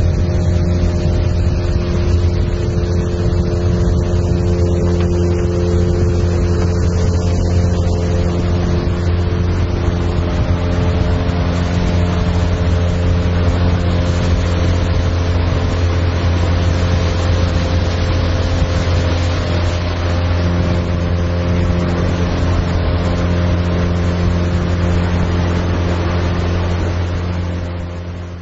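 A boat's motor running steadily at cruising speed, with a constant low engine note over the rush of water and wind. It fades out near the end.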